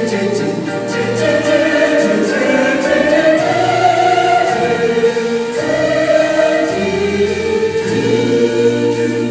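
Choral music: a choir singing sustained, slowly changing notes.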